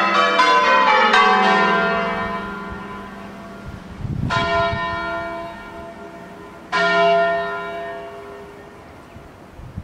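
The eight church bells of St John's, cast in 1880 by John Taylor and Company: a quick run of strikes as the change ringing ends, dying away, then two single strikes about two and a half seconds apart, each left to ring out.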